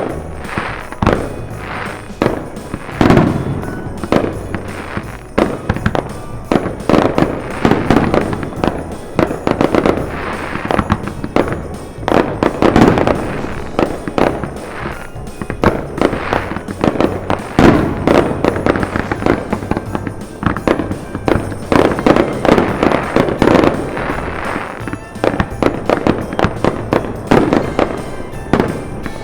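Aerial fireworks going off in rapid succession: a dense, continuous run of sharp bangs and crackles.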